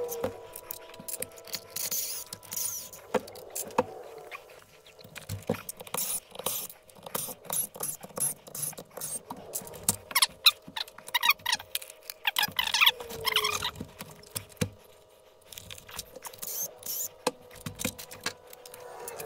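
Small tools, bits and plastic truck parts being handled: a string of irregular clicks and rattles, with some short squeaks about two-thirds of the way in.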